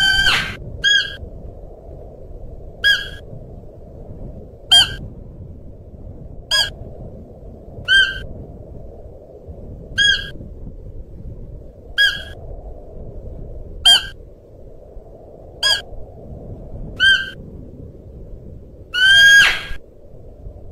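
Siberian musk deer calling: short, sharp pitched calls about every two seconds, with a longer drawn-out call at the start and another near the end, over steady low background noise.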